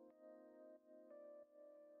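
Faint background music: soft, sustained notes with a few new notes entering now and then.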